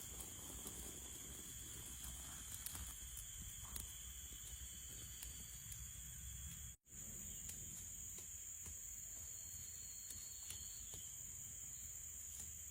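Forest ambience of insects droning steadily at a high pitch, with a few faint ticks and knocks. It cuts out briefly about seven seconds in.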